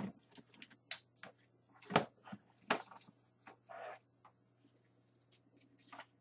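Hard plastic action figures clicking and clattering against one another and the plastic storage tub as a hand rummages through them: irregular light knocks, with a sharper one about two seconds in.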